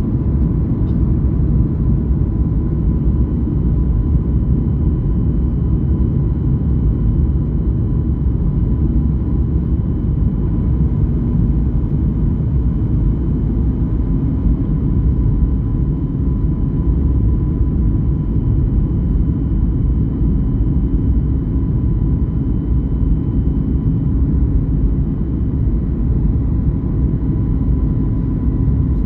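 Airliner cabin noise in flight: a steady low rumble of engines and airflow with a faint, constant high tone.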